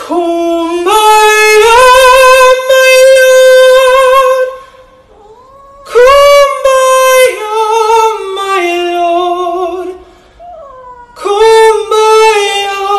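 A man singing unaccompanied, holding long high notes with vibrato in three phrases, the first and longest lasting about four and a half seconds.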